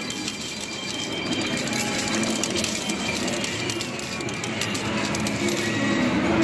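Coin pusher machine clattering: coins clinking and sliding as the pusher shelf moves them across the field, with the steady din of arcade machines behind.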